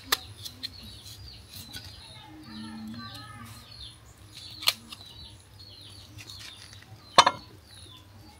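Three sharp chops of a kitchen knife striking coconut on a wooden board: one right at the start, one about halfway and one near the end. Small birds chirp throughout.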